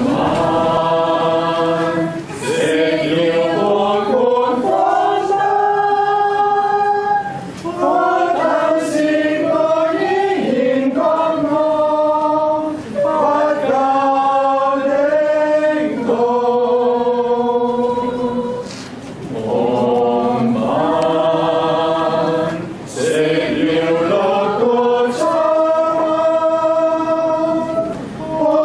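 A small mixed choir of men and women singing a Cantonese song together, with long held notes in phrases of about five seconds, each separated by a short breath pause.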